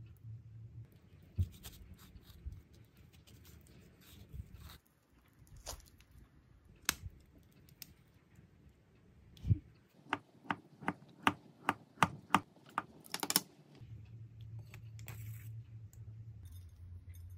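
Light clicks and taps, with a quick run of about eight evenly spaced sharp clicks in the middle. A low steady hum stops about five seconds in and comes back near the end.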